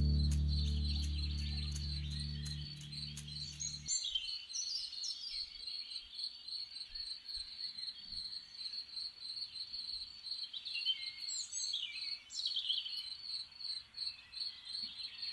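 Crickets chirping in a steady high pulse, with a songbird giving short gliding calls about four seconds in and again near the end. In the first few seconds the last notes of an acoustic guitar ring out and fade away.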